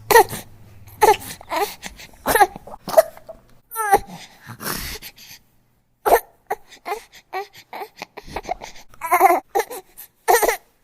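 Newborn baby crying in short, broken, fussy cries with catches of breath between them, going quiet for about half a second midway before starting up again.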